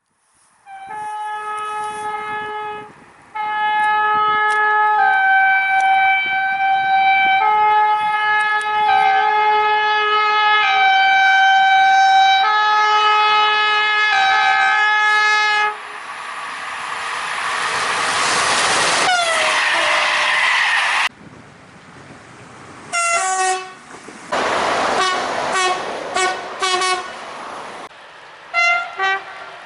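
Train horns: for the first fifteen seconds or so a run of steady horn notes changing pitch like a tune. Then a train rushes past with its horn sliding down in pitch before cutting off suddenly, followed by several short horn blasts over the rumble of a train.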